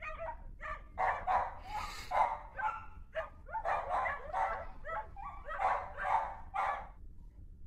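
Dog barking and yipping in a quick run of short barks, about two to three a second, which stops shortly before the end.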